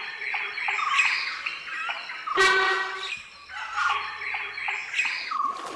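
Forest birds chirping and calling, with a single loud, pitched alarm call of a sambar deer about two and a half seconds in, lasting under a second.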